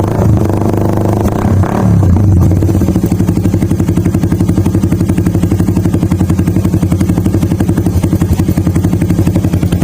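Motorcycle engine through a King Drag muffler: blipped for the first couple of seconds, then settling to a steady idle with an even, rapid exhaust pulse. The muffler gives a full sound.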